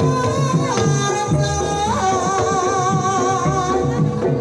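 Banyumasan gamelan playing a tayub gending: a sinden's voice holds long wavering notes, sliding down about a second in and back up about two seconds in, over steady kendang drum strokes and the quick struck notes of a wooden gambang.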